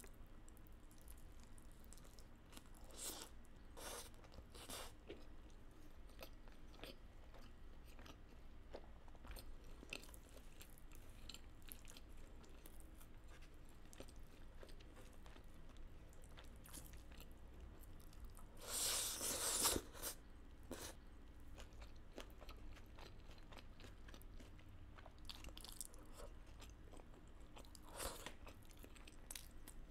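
Close-miked chewing and biting of Indian food eaten by hand, faint and intermittent, with one louder, longer noisy stretch about two-thirds of the way through.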